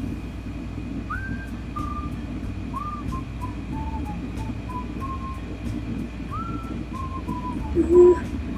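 Pop song playing as background music: a steady low bass under a melody of short, high notes, some of them sliding up. A singing voice comes in near the end.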